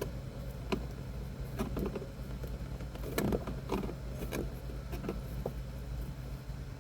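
Scattered light knocks, taps and clicks of hands working at the van's interior panels and fittings, over a steady low hum.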